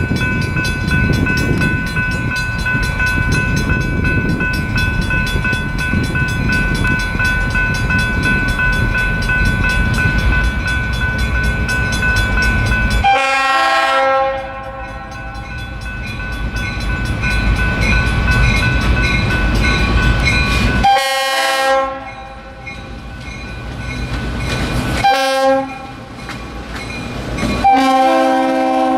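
Diesel freight locomotives approaching with a steady engine rumble; about halfway through the lead locomotive's horn starts sounding a series of blasts, a short one followed by a long one near the end, the warning for the grade crossing. The units rumble past close by as the last blast sounds.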